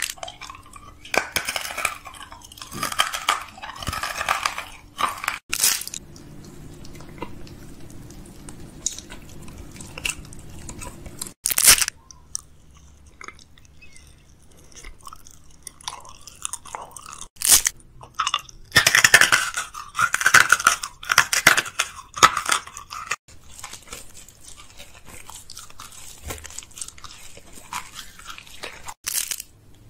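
Close-miked eating sounds: a person biting, crunching and chewing candy, with a candy wrapper being torn and crinkled in the first few seconds. Irregular crackly bites and chews, with a few sharp clicks scattered through.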